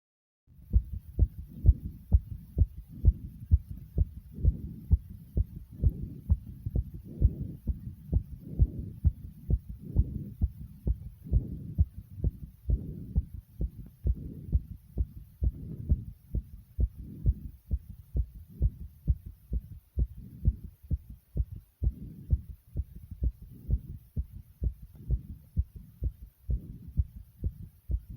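Loud heartbeat: steady, regular low thumps of a beating heart, starting about half a second in.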